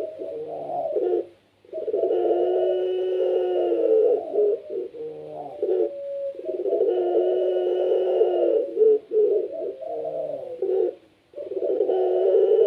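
Puter pelung, a domestic Barbary dove bred for its voice, cooing in long drawn-out phrases of about two seconds each, repeating with short breaks between them.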